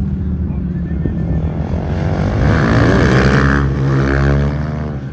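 A superbike going past at racing speed: its engine note swells about two seconds in, is loudest around the middle and falls away as it goes by, over a steady low engine drone.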